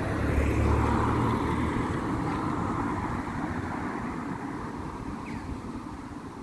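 A car driving past, its engine and tyre noise loudest about a second in, then slowly fading as it drives off.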